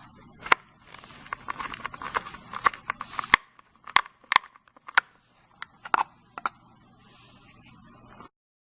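A hand screwdriver backing the screws out of a door hinge: small scraping clicks and crackles as it turns, with about seven sharper clicks and taps spread through.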